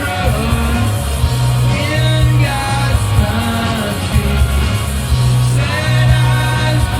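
Live rock band playing with a sung lead vocal over heavy bass and drums, picked up loud on a smartphone's microphone in a concert arena.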